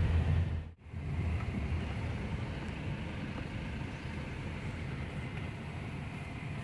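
Car driving: steady engine and road noise, broken by a sudden brief dropout just under a second in.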